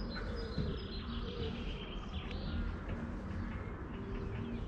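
Small birds chirping and calling over a steady low background rumble.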